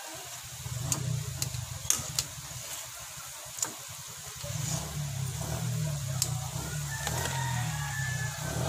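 A metal spatula clicking and scraping against a steel wok several times while turning frying donuts, over a low engine hum that gets louder about halfway in.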